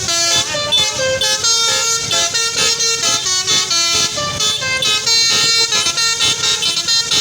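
Telolet-style melodic air horn (basuri horn) on a bus, playing a fast tune of short pitched notes that step up and down without a break.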